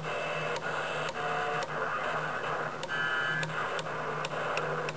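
CB radio receiver hissing with static and snatches of distant signals, the sound changing with a click about every half second as the channel selector is turned from channel to channel.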